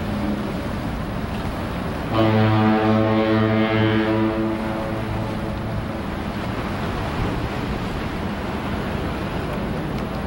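Foghorn sounding one long, deep blast that starts about two seconds in and fades out about three seconds later, over a steady rush of wind and surf.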